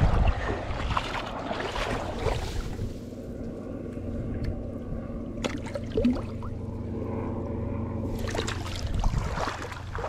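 Handling noise and small water splashes as a smallmouth bass is lowered into shallow river water and let go, over a steady low engine-like hum.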